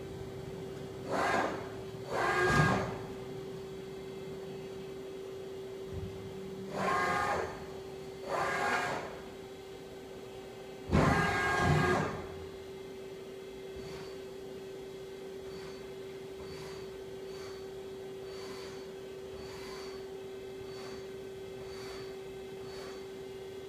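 Daewoo Puma 12L-B CNC lathe being moved under manual control: a steady machine hum, with five short bursts of motor whine over the first twelve seconds as its axes and turret travel, the last and longest about a second. Later come faint short high pips about once a second.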